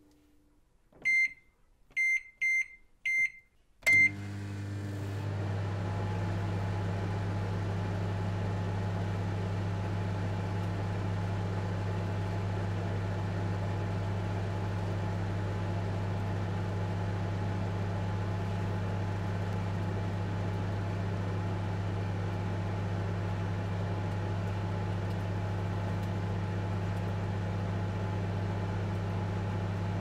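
Microwave oven giving five short high beeps at uneven spacing, then starting up about four seconds in and running with a steady low hum.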